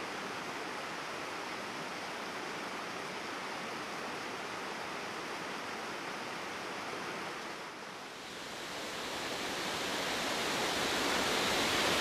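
Shallow stream rushing and rippling over rocks in a steady wash of water noise. It dips briefly about two-thirds of the way through, then grows louder and brighter.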